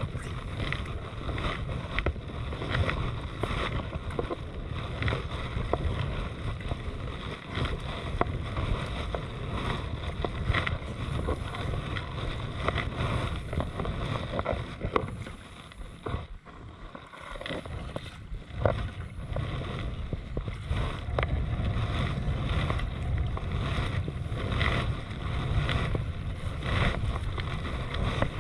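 Kayak paddle strokes: repeated splashes and water dripping off the blade beside a sea kayak's hull, with wind rumbling on the microphone.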